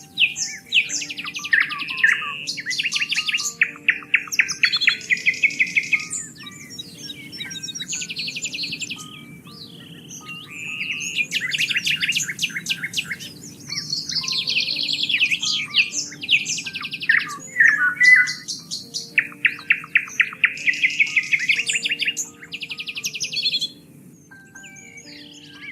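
Songbirds singing in repeated phrases of rapid trilled notes, a burst every few seconds with short gaps between, over faint steady low tones.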